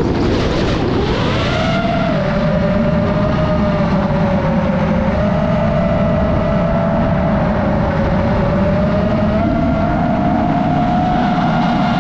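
DJI FPV drone's motors and propellers whining, with a dense rush of wind noise underneath. The whine climbs in pitch over the first second and a half, holds steady, and rises slightly about ten seconds in.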